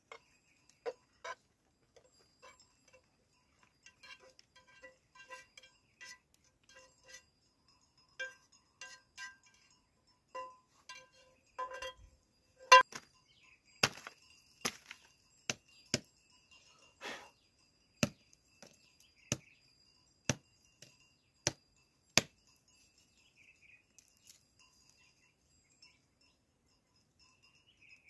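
A metal spatula scraping and tapping a nonstick frying pan, giving short ringing clinks as cooked vegetables are served out of it. Then comes a run of sharp clicks and crackles, about one a second, as aluminium foil plates are handled. The loudest click comes just under halfway through.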